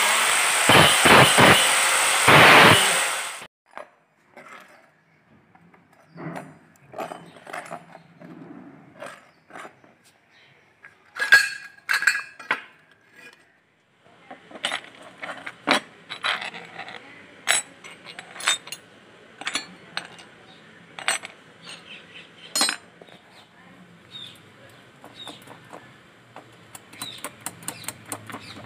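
An electric angle grinder cuts steel strip, its noise dipping a few times, then cuts off suddenly about three and a half seconds in. After that, scattered light metallic clicks and clinks as small perforated steel bars, nuts and bolts are handled and fitted together, with a louder cluster of clinks around the middle.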